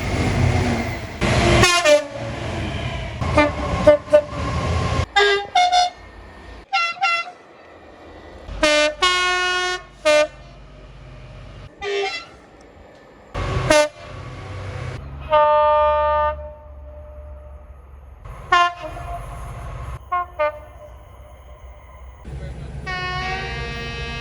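Train horns sounding one after another, cut abruptly from one recording to the next: many horn blasts, each a steady tone at its own pitch, some short and some held for a second or so. A low rumble of train engine and rail noise runs beneath.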